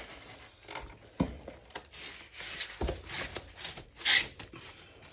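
Soft rustling of packaging and a couple of dull knocks on a tabletop as a diamond painting kit is handled and packed back into its box; the rustling is loudest near the end.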